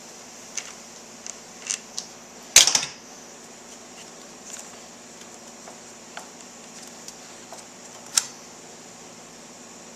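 Scattered metallic clicks and clinks of hand tools and brake parts being handled, with a short loud rattle about two and a half seconds in and a sharp clack near the end, over a steady background hiss.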